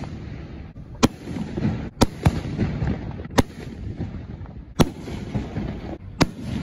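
Aerial fireworks bursting: six sharp bangs at uneven intervals, with a low rumble between them.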